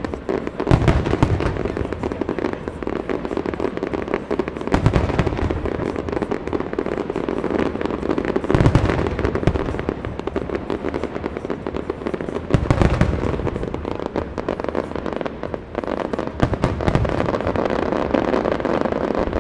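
Aerial fireworks going off in a rapid, continuous crackle of bursting shells, with a heavy boom about every four seconds.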